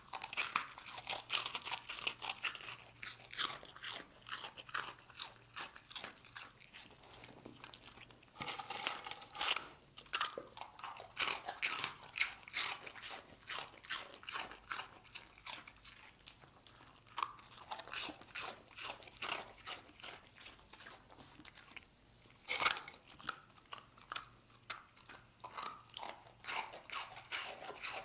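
A dog crunching and chewing hard, dry rusks: a close, steady run of sharp crunches, with louder bursts of biting about nine seconds in and again near twenty-three seconds.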